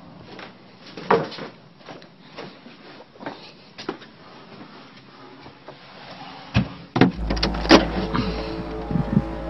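Scattered knocks and clicks, loudest around six to eight seconds in, then a deep low drone with held tones setting in near the end as the start of eerie music, faked as a mysterious 'strange sound'.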